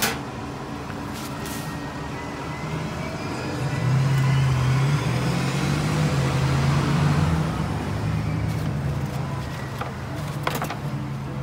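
A motor vehicle drives past on the street, swelling from about four seconds in and fading after about eight seconds, over steady traffic noise.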